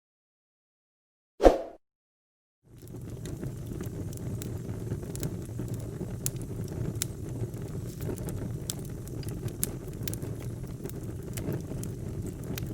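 A single short thud about a second and a half in, then, after a moment of silence, a fireplace wood fire burning steadily: a low rumble of flames with frequent sharp crackles and pops.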